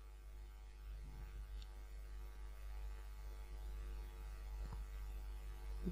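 Faint steady electrical hum, with a couple of faint clicks.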